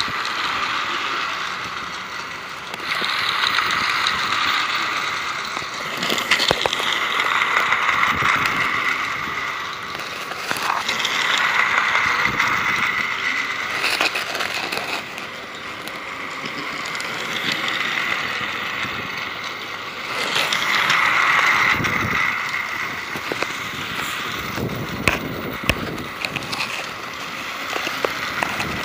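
Motorised toy passenger train running round a plastic track, its motor whirring with a light clatter of wheels over the track. It swells louder and fades again several times as the train comes past and moves away.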